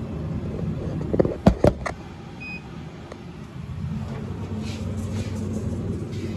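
Dixie Narco soda vending machine humming steadily with its door open, with a few sharp knocks about a second and a half in and a brief faint beep a second later.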